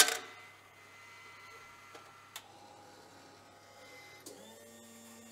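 Coffee vending machine dropping a plastic cup into its holder with a sharp clack, followed by a few faint clicks. About four seconds in, a steady mechanical hum starts up as the machine gets ready to dispense.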